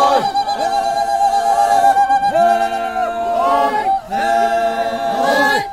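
A group of voices singing unaccompanied, several parts together, in long held notes that slide up or down at their ends, with a brief break about four seconds in.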